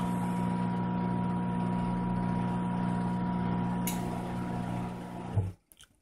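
Washing machine drive motor, its belt removed, running unloaded with a steady hum, with a light click near four seconds in. The hum stops about five and a half seconds in, as the wash timer pauses the motor before reversing its direction.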